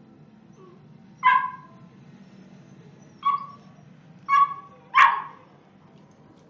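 A dog barking in play: four short, sharp barks, the last two close together.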